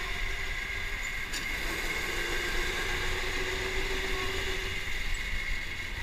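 Electric go-kart motor whining steadily as the kart laps at speed, over a low rumble from the kart running on the concrete floor.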